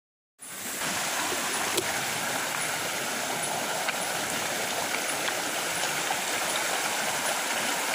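River water running steadily over rocks, a continuous rushing that starts about half a second in.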